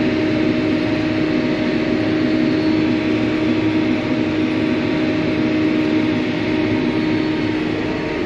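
Steady hum of a John Deere 4730 self-propelled sprayer running while spraying, heard from inside its cab, with a constant tone and even level throughout.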